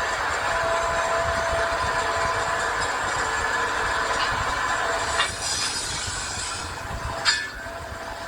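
Metalworking machinery running with a steady hiss and a thin whine. The whine fades out about five seconds in, and there are two sharp knocks, one at about five seconds and a louder one near seven.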